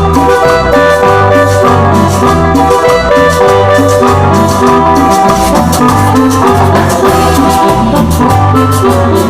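Instrumental cumbia music: a bright melody over a steady drum beat and a pulsing bass line.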